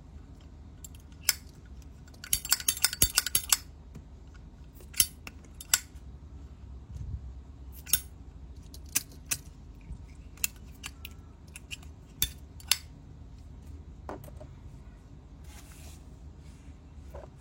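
Sharp metallic clicks and clinks of Zippo lighters being handled: a quick run of clicks about two seconds in, then single clicks every second or so.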